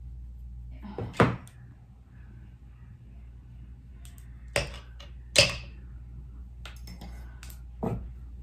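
A few sharp knocks and clicks from makeup brushes and products being handled and set down on a table, the loudest about a second in and halfway through, over a low steady hum.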